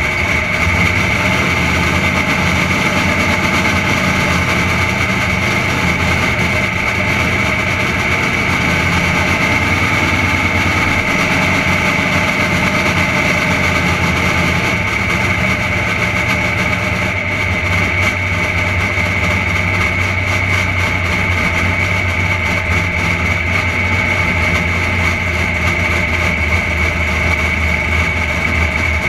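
Henry J drag car's engine running at low, steady revs as the car rolls slowly, heard close up, with a steady high whine over it.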